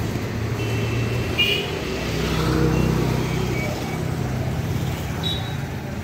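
Street traffic: a motor vehicle's engine running close by, a low hum that swells about two to three seconds in and then fades, with a few faint short high chirps above it.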